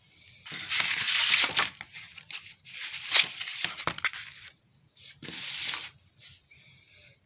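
Stiff watercolour-paper book pages being handled and turned, rustling and crinkling in three bursts.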